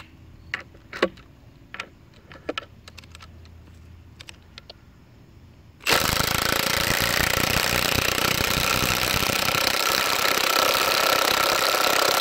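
Two cordless impact wrenches, a Milwaukee M18 Fuel 2767 and a Makita XWT08, hammering at once as they drive lag bolts into a wooden beam. After a few light handling clicks, both start suddenly about halfway through, run steadily and stop abruptly at the end as the bolts seat.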